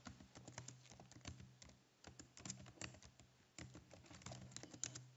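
Faint typing on a computer keyboard: quick, irregular keystrokes with short pauses, over a faint steady low hum.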